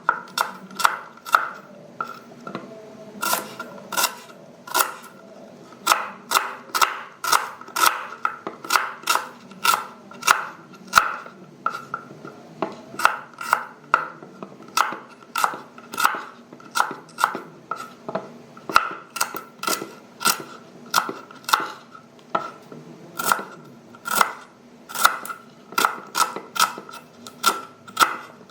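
Knife slicing onion on a cutting board: sharp, steady chops at about two strokes a second, each with a short ring.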